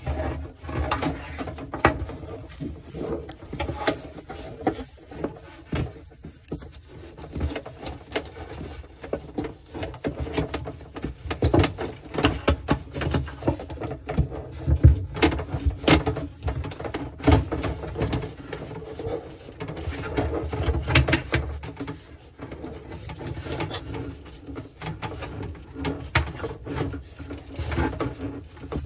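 Grey corrugated plastic dishwasher drain hose being pulled through a hole in the sink cabinet: irregular rustling and scraping, with sharp knocks of the hose against the cabinet, the loudest about halfway through.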